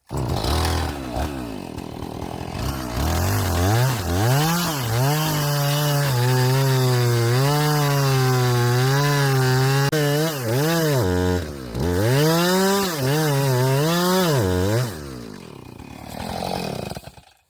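Chainsaw cutting through the trunk of an uprooted, blown-down tree, its engine speed rising and sagging as the chain bites and bogs under load. It eases off and revs back up about 11 seconds in, then drops away near the end.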